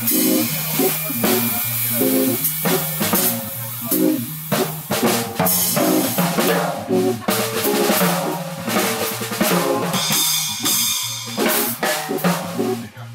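Jazz drum kit solo played with sticks on snare, toms, bass drum and cymbals, over a repeating keyboard vamp in 5/4.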